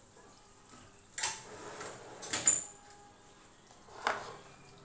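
Metal baking tray pulled out along the oven's rack runners: a sharp clank about a second in, then a louder metal clatter with a brief high ring around the middle, and one more knock near the end.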